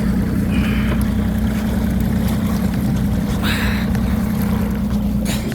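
Boat engine running steadily with a low hum, while a few short higher sounds come over it, the clearest a brief swish about three and a half seconds in.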